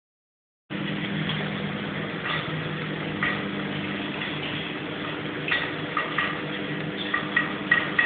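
Steady low hum with short, high cockatiel chirps over it, about one a second and coming closer together near the end, from a male cockatiel rubbing against a hanging ring toy in mating display. The sound starts just under a second in.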